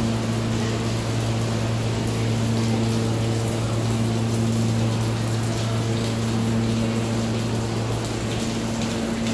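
Storm runoff from a sudden downpour pouring out of a drain hole in a subway track wall and splashing onto the track bed. Under it runs a steady low hum.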